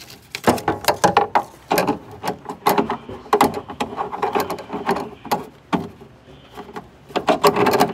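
Metal back plate of a NAYAX card reader being fitted into the vending machine's mounting hole: a run of irregular clanks, clicks and scrapes of metal on metal.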